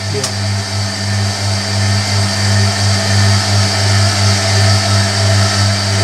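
Hoover Electronic A3172 washing machine draining its wash water: a steady low hum from the drain pump over the whirr of the drum turning for the first distribution.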